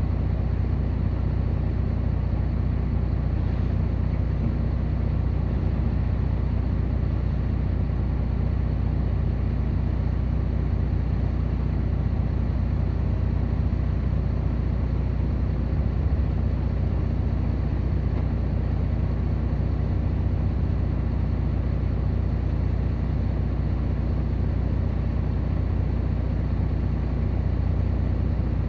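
Heavy diesel engine of mining machinery running steadily, a low even rumble that holds constant without revving or stopping.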